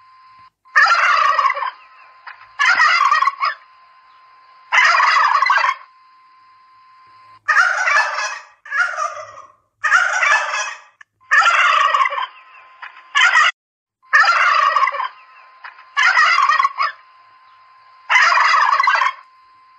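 Domestic turkeys gobbling: a dozen or so loud gobbles, each about a second long, following one another every couple of seconds.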